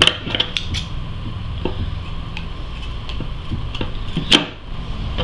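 Light clicks and knocks from handling a hand saw and a length of old garden hose, several in quick succession at the start and one sharper snap about four seconds in, over a steady low hum.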